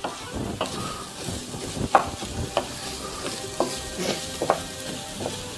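Wooden spoon stirring arborio rice and diced onion in a hot Silit frying pan, the rice sizzling lightly while it is toasted and coated for risotto. The spoon scrapes and knocks against the pan every half second to a second.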